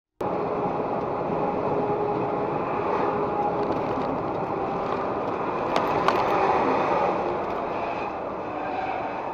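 Truck driving along a highway, heard from a dashcam in the cab: steady engine and road noise with a faint steady whine, cutting in abruptly just after the start. Two short clicks about six seconds in.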